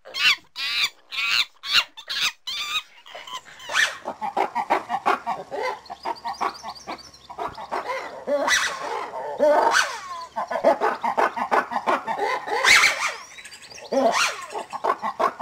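A monkey screeching in a quick series of short, high-pitched calls over the first few seconds. Then lemur calls follow: a long, dense run of wailing, wavering cries that overlap one another.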